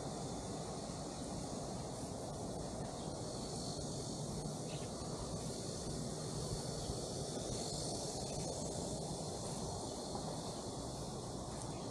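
Steady outdoor background: a low rumble with a faint, even high insect hum above it.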